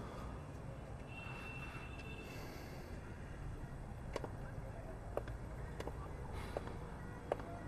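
Street background of a steady low traffic rumble. From about halfway through come footsteps of hard-soled shoes on pavement: sharp, separate clicks just under a second apart.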